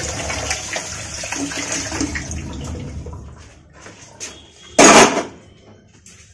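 Kitchen tap running water into a sink, tapering off about three seconds in, followed by one short loud burst of noise about five seconds in.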